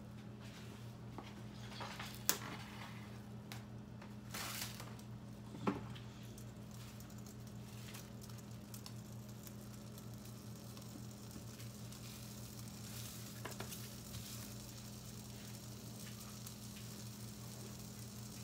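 Plastic cling wrap rustling and crinkling under hands as it is pressed and smoothed over a countertop, with a few sharp crackles in the first six seconds. A steady low electrical hum and a faint hiss run underneath.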